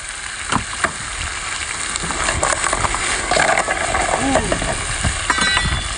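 Seafood frying in hot oil in a pan, a steady sizzle, with a few knocks of the utensil against the pan early on and stirring sounds.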